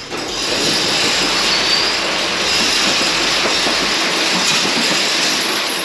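Loud, steady rushing hiss that starts suddenly and holds level.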